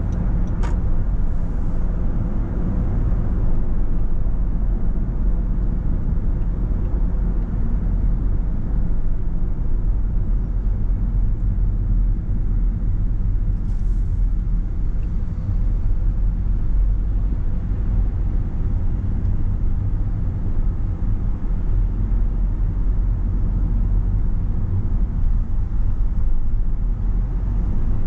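A car on the move: a steady low rumble of engine and tyre noise with no change in pace. A single sharp click comes less than a second in.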